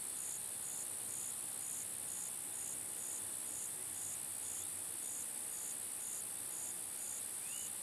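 Evening insect chorus: a steady high-pitched trill of crickets, with a softer call pulsing about twice a second beneath it. A brief rising chirp near the end.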